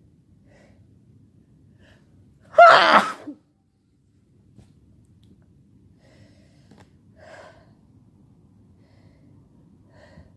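A single loud, voiced sneeze about two and a half seconds in, lasting under a second, from a person who is sick; a faint short breath follows a few seconds later.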